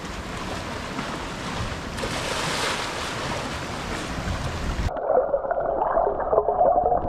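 Sea water sloshing and splashing in a rocky ocean pool as a snorkeller swims, with wind on the microphone. About five seconds in, the sound turns suddenly muffled, heard from underwater, with gurgling and bubbling.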